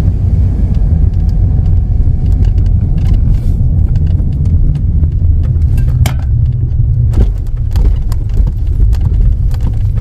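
A Honda Element driving slowly over rutted, soft sand: a steady low rumble inside the cabin, with scattered knocks and rattles as it bumps along.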